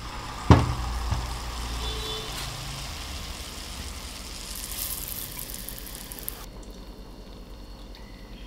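Battered corn dog going into hot oil with a sudden splash about half a second in, then sizzling and bubbling as it deep-fries. The sizzle cuts off abruptly about six and a half seconds in.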